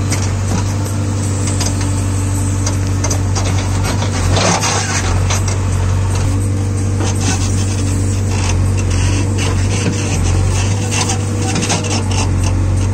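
JCB 3DX backhoe loader's diesel engine running steadily while the backhoe bucket digs into soil and roots, with scraping and crackling that is loudest about four and a half seconds in.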